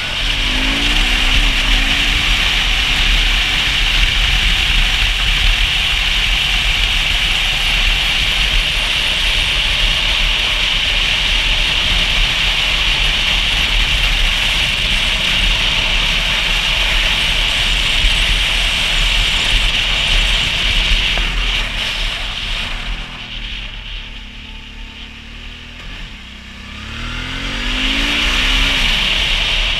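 Motorcycle riding on the road: steady wind and road noise with the engine running underneath. The engine rises in pitch as the bike accelerates near the start, the sound dips as it slows about three-quarters of the way through, then it picks up and accelerates again near the end.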